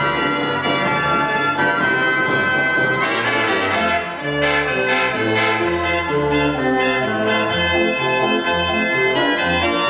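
Mechanical organ music: a brass-toned tune over a steady bass beat about twice a second, changing phrase about four seconds in.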